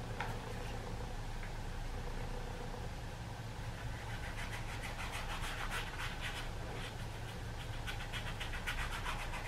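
Foam brush dabbing paint onto a stretched canvas: a quick run of short taps from about four seconds in, over a steady low background hum.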